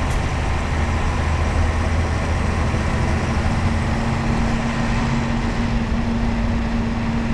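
Mercedes-Benz OF-1721 bus's OM-366LA six-cylinder turbodiesel running steadily. A steady tone joins the engine note about two and a half seconds in.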